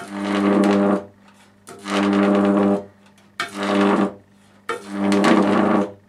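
High-voltage arcs drawn from a microwave oven transformer with a discharge stick: four loud buzzing arcs, each lasting about a second, with a steady low hum under a sizzling hiss.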